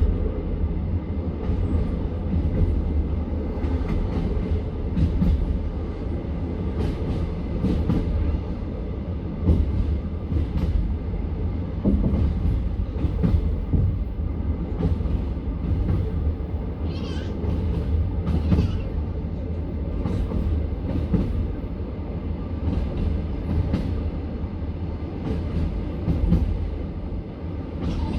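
Passenger train carriage running on the rails, heard from inside at the window: a steady low rumble with wheels clacking over rail joints. Two brief high-pitched squeals come around the middle.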